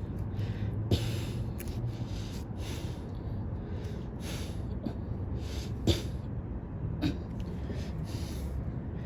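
Handling noises: a few short clicks and scrapes, louder about a second in and again around six and seven seconds, over a low steady hum.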